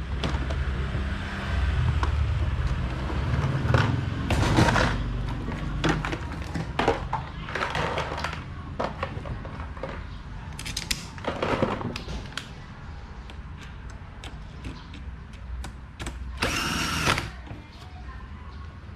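Hand work on an electric fan: scattered clicks, knocks and rubbing, over a low hum for the first few seconds, with a short whirring burst near the end.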